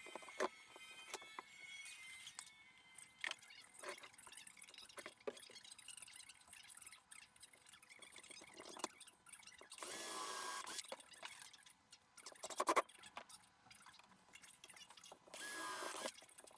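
A power drill driving screws into MDF in two short runs, about ten seconds in and again near the end, each with a steady whine. Scattered knocks and clicks come from the MDF pieces being handled.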